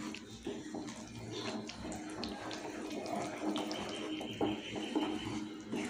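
Gram flour and oil mixture bubbling and sizzling with a steady hiss in a pan, stirred with a wooden spatula, with scattered small pops and scrapes. Besan is cooking in oil on a low flame.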